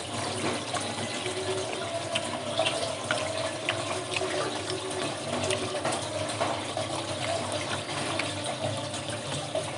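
Steady rush of running water, with scattered small clicks as a hand picks at rice and mussel shells.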